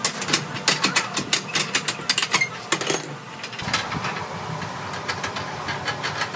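Rapid metallic clicking and clinking as a hand socket wrench is turned on the steel clamp bolts of a tyre rim. After about three and a half seconds a steady low machine hum sets in under lighter clicks.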